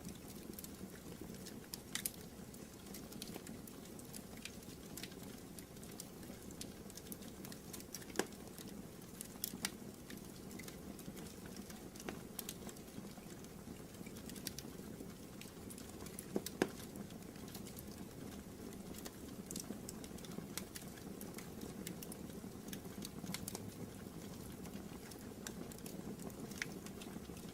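Wood fire burning in a fireplace: a steady low rush of flames with irregular sharp crackles and pops.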